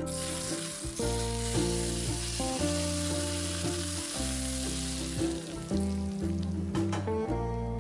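Hot cooking oil sizzling as it is poured over raw chopped chilies, shallots, ginger and tomato in a bowl; the sizzle starts suddenly and dies away over the last couple of seconds. Acoustic guitar music plays underneath.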